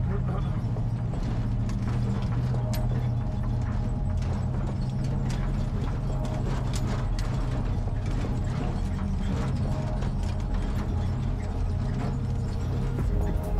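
Suzuki SideKick driving slowly over a rocky dirt trail, heard from inside the cab: the engine keeps up a steady low drone under irregular clicks, knocks and rattles as the tyres and body go over loose rock.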